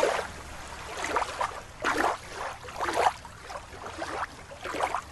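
Water sloshing and splashing in short surges, about one a second.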